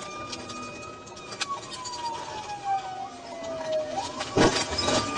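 Police car siren on a slow wail: one tone falling steadily, then swooping back up about four seconds in. A heavy thump comes just after the rise.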